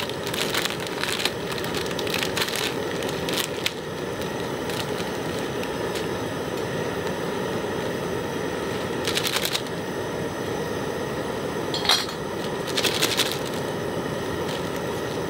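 High-output camping burner running at full flame with a steady hiss under an aluminium pot of water at the boil. A few metallic clinks sound over it, the clearest and ringing about twelve seconds in as the pot lid comes off.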